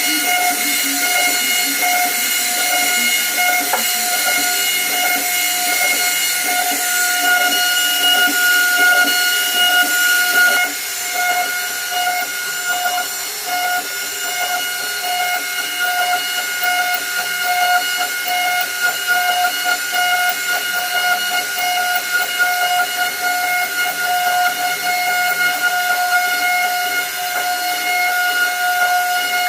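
CNC router spindle running at a steady high-pitched whine while its bit carves a wooden board, with a hiss of cutting over it. The hiss eases a little about a third of the way in.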